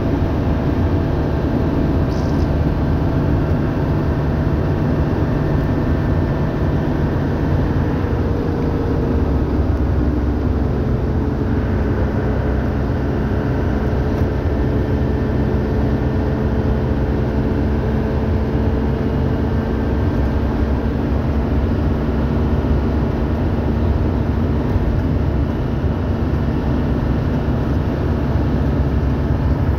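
Toyota Coaster bus's six-cylinder engine running steadily under load through its five-speed manual gearbox, heard from inside the cab as a loud, even hum. A faint whine in it slowly drops in pitch partway through. The driver takes the constant humming as the sign of an engine over-revving for lack of a taller six-speed gearbox.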